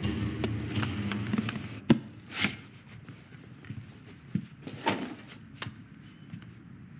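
Film sound effects: a low hum that fades out about two seconds in, then a sharp click, a brief swish and a few light knocks and thuds.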